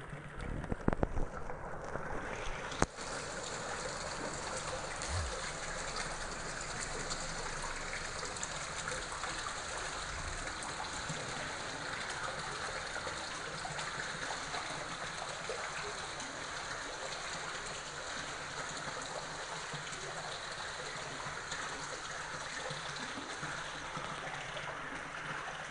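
Small garden pond waterfall: water spilling over a stone ledge into the pool below, a steady trickling splash. A few soft thumps in the first three seconds.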